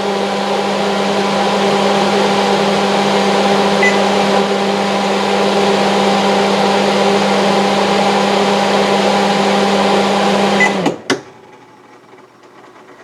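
Newly replaced refrigerator evaporator fan motor running with a steady hum and rushing air, a sign that the replacement motor works. About eleven seconds in the sound cuts off with a sharp knock or two, leaving only a faint hum.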